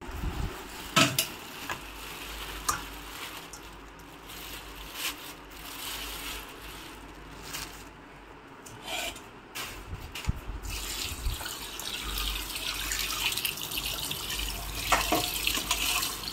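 Water running from a tap and splashing, as when fish are rinsed, with a few sharp knocks at about a second in, near three seconds and near the end.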